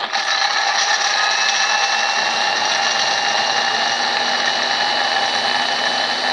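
Small electric food chopper switched on and running at a steady high whine, its blades grinding red chillies, shallots and garlic into a spice paste.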